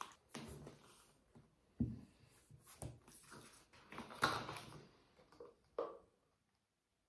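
Clicks, knocks and rustles of a plastic fabric-softener bottle being handled and its screw cap twisted off. The sharpest knock comes about four seconds in, and the sound cuts off to silence just after six seconds.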